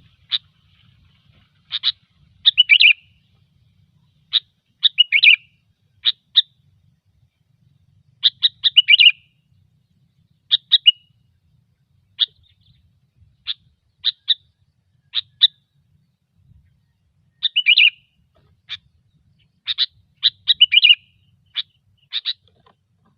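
Sooty-headed bulbul calling over and over: short, sharp chirping notes in quick clusters of two to four, repeated every second or two, the busy, incessant calling used as a trapping lure.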